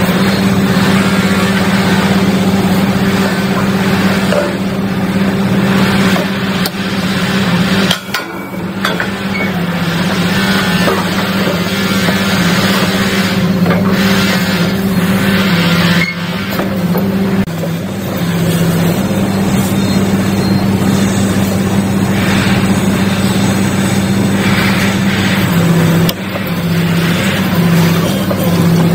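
Giken Silent Piler SA100 hydraulic sheet-pile press running: a steady mechanical hum from its hydraulic drive, sinking slightly in pitch now and then as the load changes, with two brief drops in loudness partway through.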